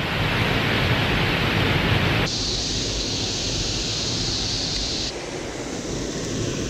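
Steady rushing of water pouring over a small spillway waterfall, a constant hiss with no pitch, which shifts abruptly in tone twice, about two seconds in and about five seconds in.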